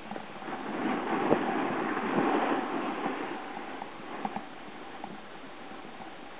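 Snowboard sliding and scraping over packed snow: a rough hiss that swells for the first few seconds, then settles to a quieter steady scrape with a few light ticks.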